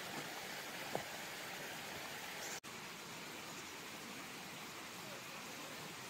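Steady rushing background hiss, with a brief knock about a second in and a faint, short, high bird chirp about two and a half seconds in; the sound cuts out for an instant just after the chirp.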